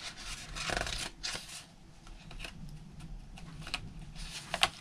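Paper rustling and rubbing as hands handle the pages and paper tags of a handmade junk journal, in short swishes with a few crisp clicks about a second in and again just before the end.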